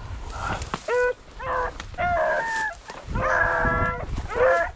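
Rabbit-hunting dogs baying and yelping: a quick series of short, high cries about every half second, with a longer drawn-out bawl about three seconds in.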